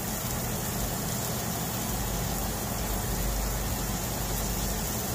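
Diced onions sizzling steadily in oil in a stainless steel skillet as they sauté, over a steady low mechanical hum.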